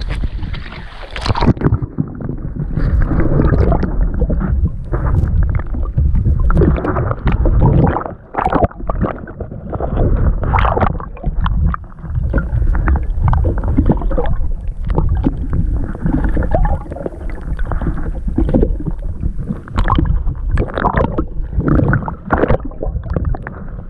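Sea water sloshing, gurgling and splashing against a camera dipped at and under the surface, muffled and dull once it goes under about a second and a half in, with repeated splashes throughout.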